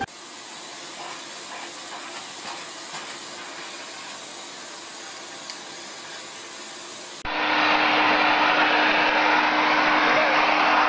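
A quiet steady hiss, then about seven seconds in an abrupt switch to a vacuum cleaner running loudly with a steady hum.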